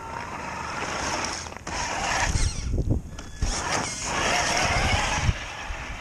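Traxxas TRX-4 Ford Bronco RC crawler driving through wet slush: its electric motor whining as the tyres churn and splash the slush, a rough, uneven noise with two brief dips partway through.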